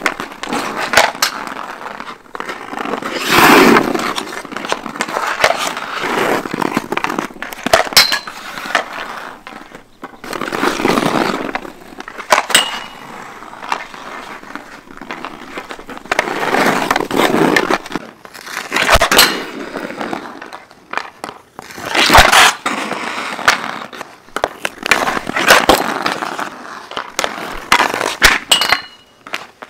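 Hockey skate blades carving and scraping on rink ice in repeated strides, with sharp clicks and knocks of a stick and puck between them.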